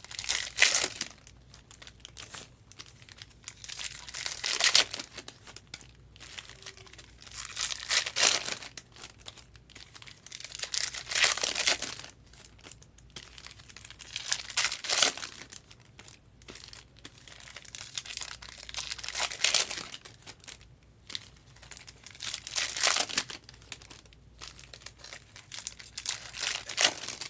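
Trading card pack wrappers being torn open and crinkled in bursts about every three to four seconds, with quieter handling of cards between them.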